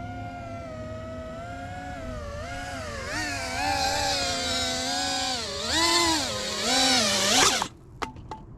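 Brushless motors and propellers of an iFlight Nazgul Evoque F5D 5-inch FPV quadcopter whining, the pitch rising and falling with the throttle. From about three seconds in it grows louder with quick swoops in pitch, then cuts off suddenly near the end, followed by a few short clicks.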